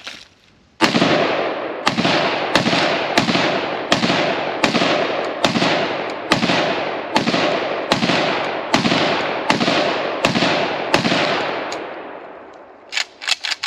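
Galil ACE braced pistol fired in steady semi-automatic shots, more than a dozen at about one and a half to two a second. Each shot is sharp and loud with a long echoing tail. A few light clicks follow near the end, after the last shot's echo dies away.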